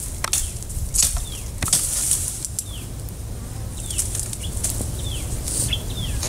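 Outdoor field sound: repeated short falling chirps from a bird, over a restless low wind rumble on the microphone and brief rustling noises every second or so.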